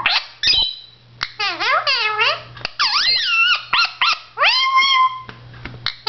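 Blue Indian ringneck parakeet chattering: a quick string of short pitched calls that swoop up and down, ending with a longer call that levels off near the end.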